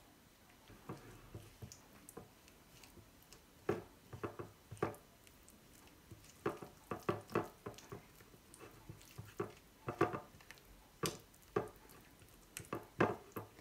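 Silicone spatula stirring a thick yogurt-and-spice marinade in a bowl: soft, irregular squelching and scraping strokes that come more often after the first few seconds.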